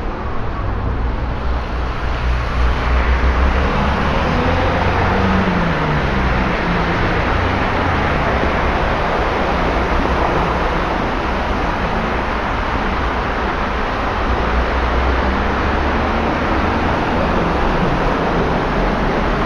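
Traffic driving through standing water on a flooded, rain-soaked road: a steady wash of tyre hiss and spray over the low rumble of engines. One engine note rises and falls about five seconds in.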